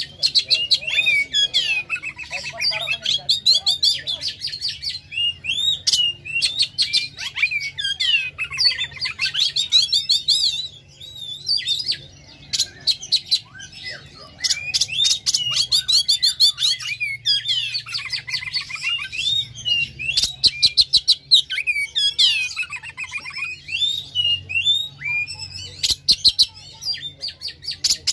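Oriental magpie-robin singing loudly and without pause: varied sweeping whistled phrases run together with very fast, harsh rattling and clicking notes, in bursts every couple of seconds with only short breaks.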